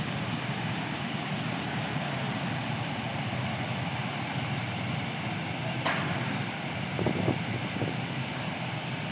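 Steady hum of city street traffic, recorded on a smartphone's built-in microphone, with a short sharp click about six seconds in.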